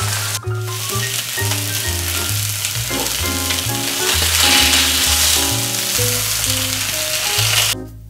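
Bass fillets sizzling in hot oil in a non-stick frying pan, skin side crisping; the sizzle stops suddenly near the end. Background music with a stepping bass line plays throughout.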